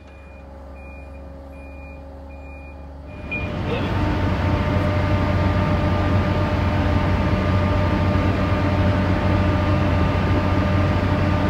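A high electronic warning beep repeats about five times. Then, about three seconds in, the steady drone of a cargo ship's engine rises over a rush of wind and water as the ship steams along.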